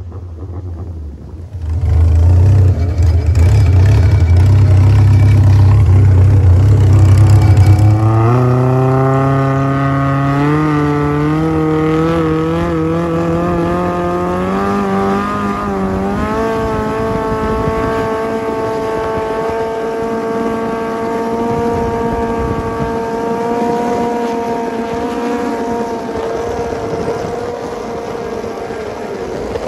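Toyota 4A-GE inline-four from a Corolla, fitted with individual throttle bodies and an exhaust pipe about two feet long, driving a longtail boat. It runs low and loud for several seconds, then the revs climb steadily for about eight seconds, wavering a little, and settle at a high, steady pitch as the boat runs at speed.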